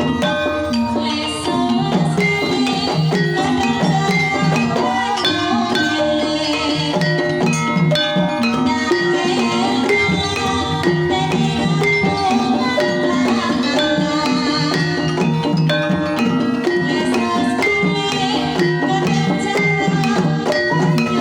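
Banyumasan gamelan ensemble playing a tayub gending: many struck pitched notes over a steady drum beat.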